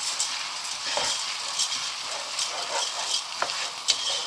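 Rice with chopped peppers, onion and mushroom sizzling in a pot as a wooden spoon stirs them, with scrapes and light knocks of the spoon against the pot; the sharpest knock comes near the end.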